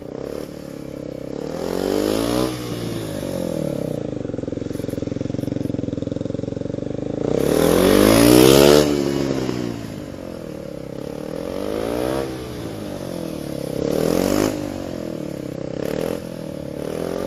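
Kawasaki Z250SL single-cylinder motorcycle engine revving up and dropping back over and over as the bike accelerates and brakes between cones, loudest as it passes close by about eight seconds in.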